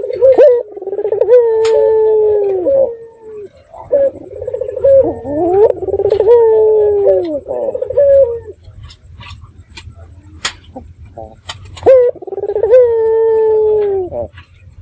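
Puter (Barbary dove) cooing: three long, rolling coo phrases, each rising and then sliding slowly down, with short gaps between them. Scattered sharp clicks fall in the gaps.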